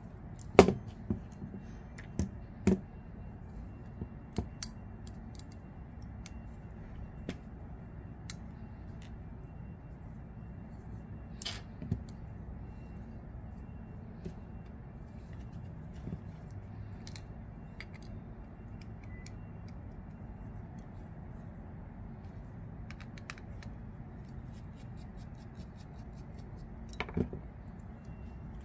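Small sharp metal clicks and taps from handling the parts of a disassembled folding knife and a small screwdriver, bunched in the first few seconds and again near the end, over a faint steady low hum.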